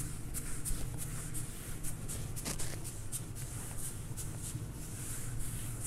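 Whiteboard eraser wiped back and forth across a whiteboard, a steady run of short dry rubbing strokes, a few a second.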